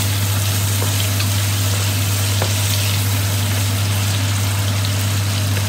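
Chicken, onion and tomato sizzling in hot oil in a stainless steel wok while being stirred with a wooden spatula, with a few faint scrapes of the spatula. A steady low hum runs under it.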